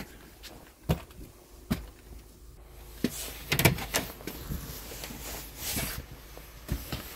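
Two footfalls on concrete steps, then a wooden front door's handle and latch clicking and the door being pushed open with a rattle about three and a half seconds in, followed by steps and knocks on a tiled floor inside.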